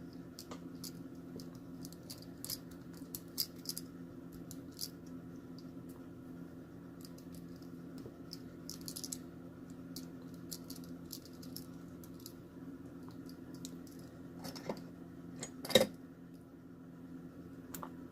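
Small metallic clicks and taps from a mortise lock cylinder being handled and worked on, with one louder clack about 16 seconds in.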